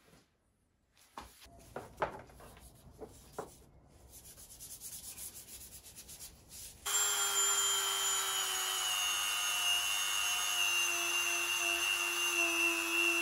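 A few light clicks and handling of metal bike parts, then about seven seconds in a corded rotary tool starts suddenly and runs steadily with a high whine, used on an aluminium crank arm.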